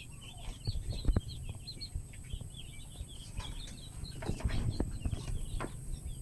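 Many young chicks peeping at once, a steady stream of short high chirps. A sharp knock comes about a second in, with a few rustles and knocks around four to five seconds in.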